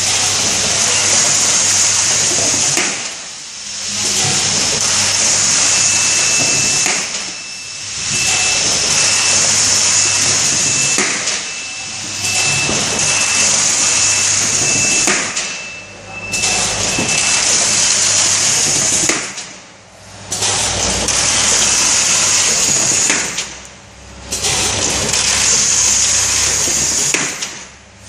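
Automatic carton erector and bottom sealer running through its cycles: a steady air hiss over a low machine hum, dipping briefly about every four seconds as each case is opened and moved on. A high electronic beep sounds midway, first steady and then pulsing, for about twelve seconds.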